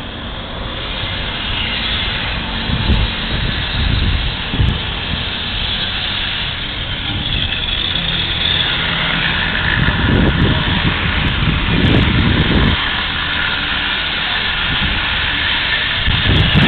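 Steady street noise of road traffic, with several low rumbles as vehicles pass.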